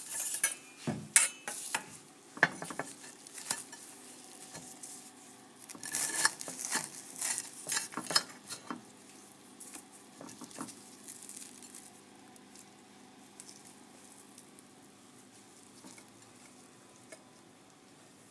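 Toasted sandwiches handled on a ceramic plate: crisp toast scraping and tapping against the plate in quick clusters, busiest in the first three seconds and again from about six to nine seconds in, then only a few light taps.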